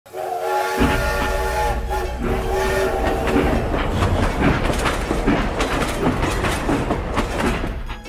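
Toy steam train sounding a two-blast steam-whistle chord, then chugging and clattering along plastic track with a low steady rumble under it.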